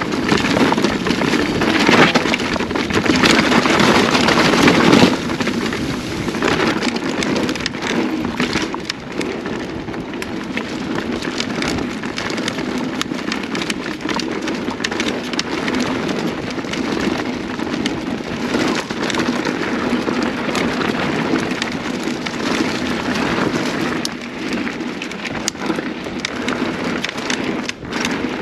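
Mountain bike rolling fast down dirt singletrack, heard from a camera mounted on the rider: tyres crunching over dirt and dry leaves, with frequent clicks and rattles from the bike over bumps. It is loudest in the first five seconds.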